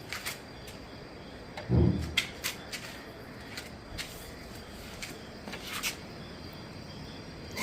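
Household handling noises: one low thump about two seconds in and scattered light clicks and knocks, over a faint steady chirring of insects.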